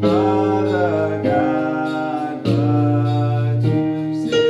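A small mixed vocal group singing a slow worship song over instrumental accompaniment, the chords changing about every second and a quarter.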